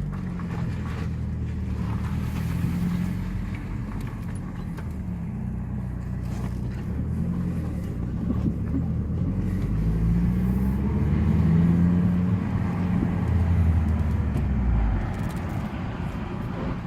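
2009 Mazdaspeed3's turbocharged 2.3-litre four-cylinder engine pulling away and accelerating, its pitch rising and falling with the throttle and shifts, loudest about two-thirds through, with no audible knock.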